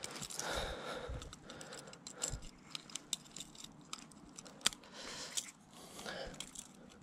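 Handling noise as steel forceps work a wobbler's hooks out of a fish's mouth in a landing net: small metallic clicks and rattles with rustling and scraping, and one sharper click a little over four and a half seconds in.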